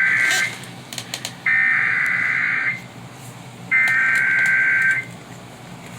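Emergency Alert System SAME header data bursts: harsh, buzzy digital screeches about a second long, with the tail of one burst followed by two more about a second apart. They carry the coded header of a severe thunderstorm warning.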